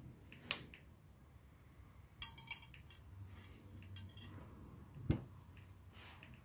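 Small handling sounds while a thawed mackerel is rigged with line and hook over a ceramic plate: a light click, a short ringing clink about two seconds in, and a dull knock about five seconds in.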